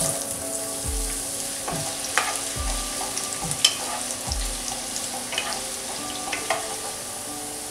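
Carrot sticks sizzling as they fry in hot mustard oil in a kadhai, with a steady hiss that starts as they drop in. A wooden spatula stirs them, scraping and tapping against the pan in scattered clicks and a few dull knocks.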